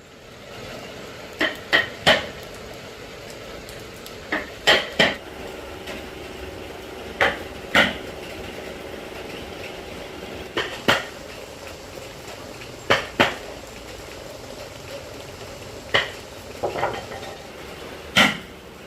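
Sharp knocks or clinks of hard objects, mostly in pairs and threes every two to three seconds, over a steady low hum.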